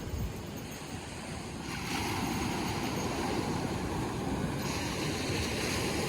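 Ocean surf washing on the beach with wind on the microphone, a steady rush that grows louder about two seconds in.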